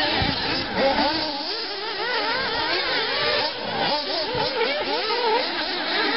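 Several 1:8 nitro off-road RC buggies racing, their small two-stroke glow engines whining at once, each rising and falling in pitch as it revs up and eases off around the track.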